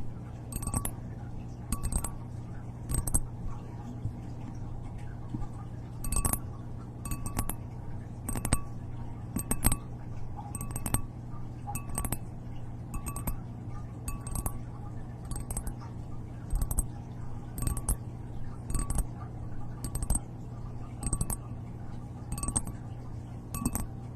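Light clinking taps on a hard, ringing object, about one a second, each ringing briefly at the same pitches, with a pause of about three seconds after the third tap. A steady low hum runs underneath.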